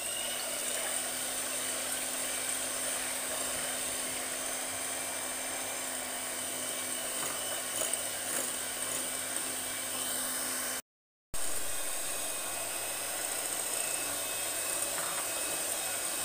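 Electric hand mixer running steadily with its beaters whisking egg whites into a foam in a glass bowl, a constant motor whine. The sound cuts out for about half a second about two-thirds of the way through.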